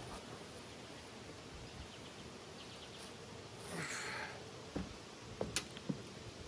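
Honey bees buzzing around an open hive, with a brief rustle about four seconds in and then a few sharp knocks as the hive is handled.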